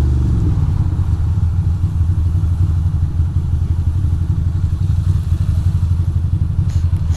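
2006 Ducati Monster 620's air-cooled L-twin engine running at low, steady revs, with a low pulsing note, as the bike creeps between lanes of traffic at light throttle.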